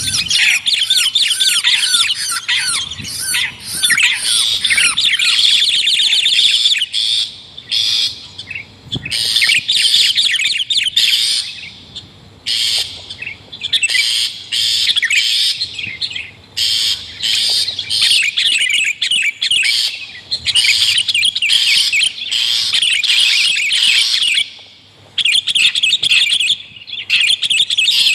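Bird-lure recording of long-tailed shrike and sooty-headed bulbul calls mixed together: loud, rapid, busy chattering and trilling in runs a few seconds long, with brief breaks between.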